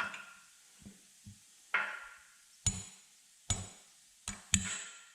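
Hammer blows on steel: about eight strikes at uneven spacing, each ringing briefly, the later ones louder.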